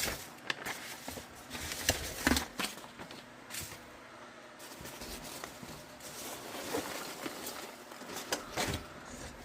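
Packaging being handled during an unboxing: irregular rustles, crinkles and small clicks, loudest about two seconds in and again near the end.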